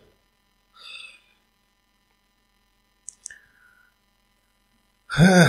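Mostly quiet: a man lets out a faint breath, and a pair of small clicks sounds a little after three seconds as he takes off his over-ear headphones. Near the end he clears his throat loudly.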